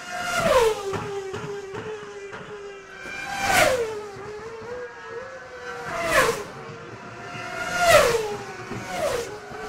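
1/24 scale Carrera slot cars running on the track. Their electric motor whine peaks and then drops sharply in pitch about five times as the cars pass.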